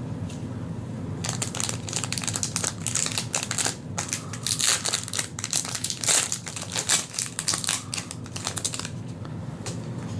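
Wrapping on a stack of trading cards crinkling and crackling as it is torn open by hand. It starts about a second in and stops about a second before the end.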